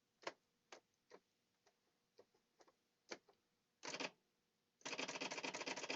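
Brother Correctronic GX-6750 daisy wheel electric typewriter: a string of separate sharp clicks, then a short cluster, then about a second of rapid printing strikes near the end.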